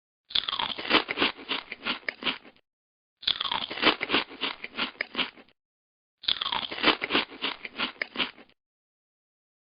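A crunchy biting-and-chewing sound effect, played three times. Each round lasts about two seconds and opens with a quick falling swoosh, followed by a rapid run of crunches.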